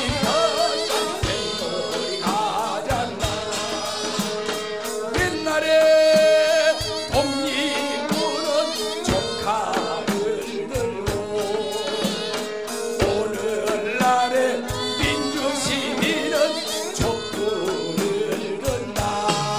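Live folk-style band music with singing: gayageum, flute and drum kit playing together, with regular percussion strikes keeping the beat.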